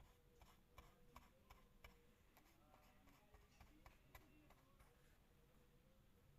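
Near silence: quiet room tone with faint scattered ticks, and a louder knock right at the end as the recording phone is handled.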